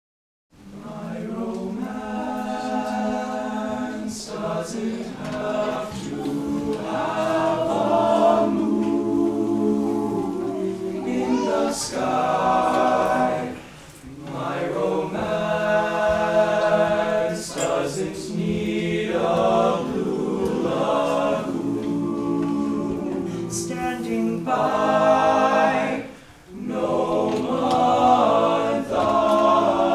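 All-male a cappella group of about a dozen singers singing in harmony, with no instruments. The singing starts about half a second in and drops away briefly between phrases, near 14 and 26 seconds in.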